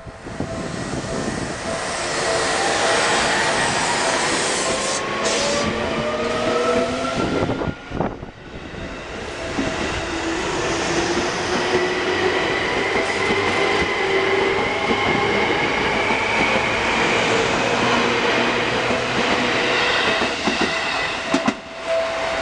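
Seibu 2000-series electric commuter train pulling away and passing close by: its traction motors whine in several tones that rise steadily in pitch as it accelerates, over the running noise of the cars. The rise is heard twice, with a brief drop in level about eight seconds in.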